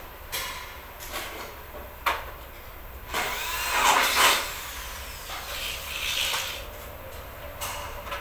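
Cordless drill working on an aluminium sliding door's bottom track. It runs in several short goes, then a longer, louder run with a rising whine about three to four seconds in.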